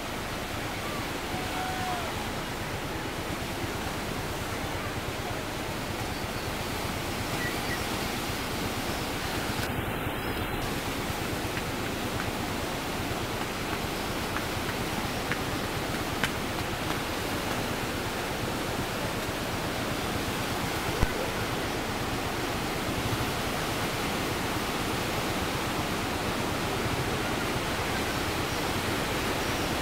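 Bono tidal bore waves breaking as they surge up the river: a steady rushing of water that grows gradually louder.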